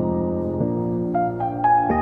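Soft background music: sustained piano or keyboard chords changing slowly, with single notes added on top.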